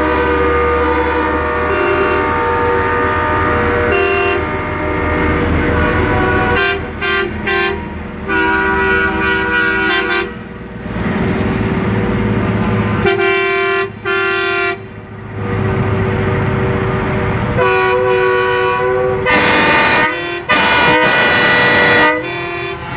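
Semi-truck air horns blasting again and again, in long and short blasts with brief breaks, loudest near the end, over the low rumble of big-rig diesel engines pulling out.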